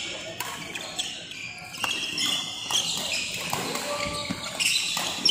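Badminton rally: rackets striking the shuttlecock roughly once a second, with high shoe squeaks on the court between shots.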